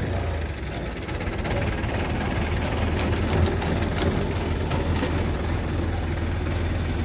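Tractor engine running steadily as it drives a PTO-powered compost windrow turner, with a low, even hum. Sharp clicks and knocks from the turning machinery come scattered between about a second and a half and five seconds in.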